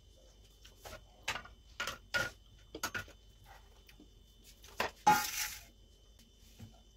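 Steel spatula and metal kitchenware clinking and scraping against an aluminium tray: a string of light sharp knocks, then one louder clatter with a short rattle about five seconds in.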